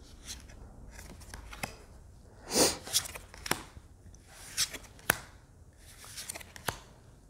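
Tarot cards being handled one by one: cards sliding off the deck and being laid onto a pile, giving light slaps and short papery swishes about once a second, the loudest swish a little before the middle.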